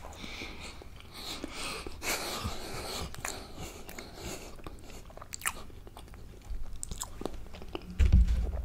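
Close-miked mouth chewing of a mouthful of food, with scattered sharp clicks. A loud low thump comes near the end.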